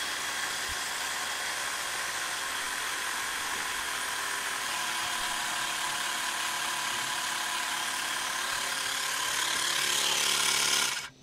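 Xiaomi Mi portable battery-powered air compressor running steadily while inflating a large-volume vehicle leveling air cushion: a motor hum with a hiss of air. It grows a little louder near the end, then stops abruptly.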